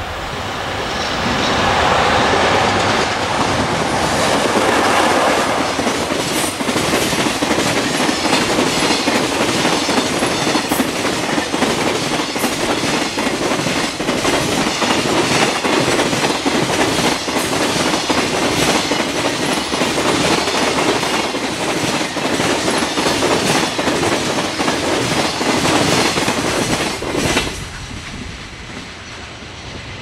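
Electric-hauled freight train passing at speed over jointed rail: the locomotive goes by in the first few seconds, then a long line of container wagons clatters over the rail joints in a rapid, regular rhythm. The clatter cuts off about 27 seconds in as the last wagon passes.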